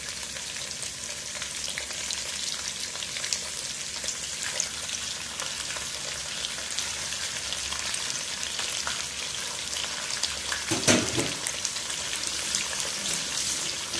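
Raw chicken pieces sizzling in hot oil in a wok with shallots and garlic, being sautéed until half-cooked: a steady fine crackle. A brief louder clatter about eleven seconds in.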